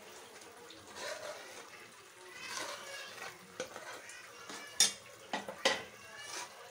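Mashed toor dal poured from a pressure cooker into an aluminium pan of simmering tomatoes, a spoon scraping and knocking on the metal. Several sharp metal clicks come in the second half, the loudest about five seconds in.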